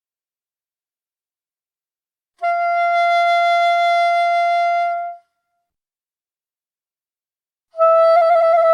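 Saxophone playing two long held notes at the same fairly high pitch: the first comes in about two and a half seconds in and lasts nearly three seconds, and the second starts near the end with a slight wobble in pitch.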